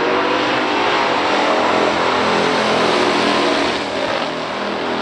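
Two V8 muscle cars, a 1971 Plymouth Cuda with a 440 six-barrel and a 1968 Chevy Nova SS with a 396, accelerating at full throttle side by side down a drag strip. The engine noise is loud and dense, and dips a little about four seconds in.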